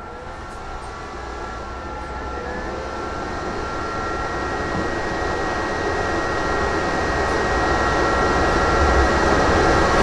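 A steady mechanical drone with a faint high whine, growing steadily louder.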